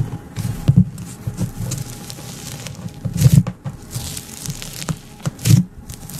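Fingers pulling, pressing and poking a red-and-white textured slime in a plastic tub: an irregular run of crackly squishes and pops, loudest about three seconds in and again near the end.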